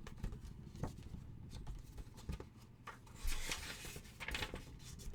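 Quiet room with faint handling noise: a few soft clicks and two brief rustling swishes about three and four seconds in.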